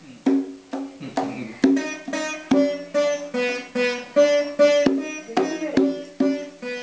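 Veena plucked in a steady melody, about two or three notes a second, with a toddler's irregular slaps on the head of a mridangam.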